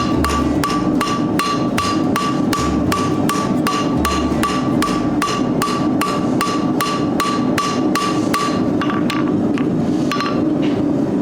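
Blacksmith's hammer striking hot steel on an anvil at a steady pace, about three blows a second, each blow ringing with a clear anvil tone, over a steady rushing noise: the strap of a forged hinge being drawn out. The blows thin out briefly near the end.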